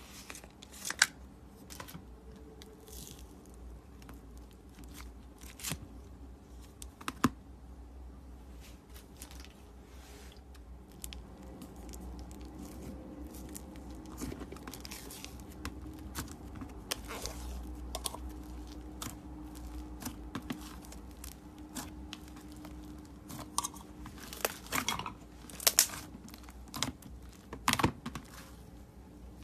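Thick slime being handled: the plastic jar lid is unscrewed, then fingers press into the slime and stretch and tear it, giving scattered sharp clicks and small popping snaps that come faster and louder near the end.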